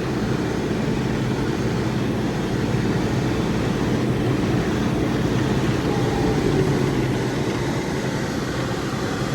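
A vehicle engine running steadily at a constant speed, heard from on board as an even low rumble and hum.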